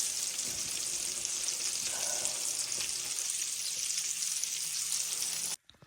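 Sausage and potatoes frying in a pan: a steady high sizzle that cuts off abruptly near the end.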